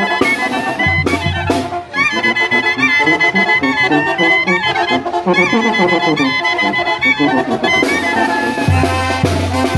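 Brass band music, a lively tune led by trumpets, with a heavy low bass coming in near the end.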